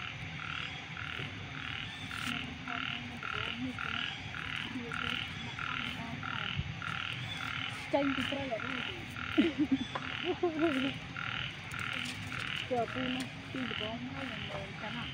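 Frogs croaking in an even rhythm, about two croaks a second, without pause. A few short wavering calls rise above it between about eight and eleven seconds in, the loudest sounds here.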